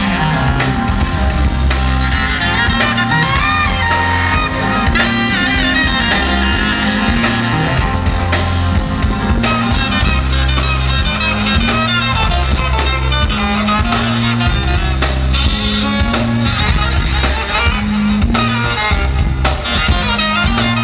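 Music with a prominent guitar and a steady, repeating bass line.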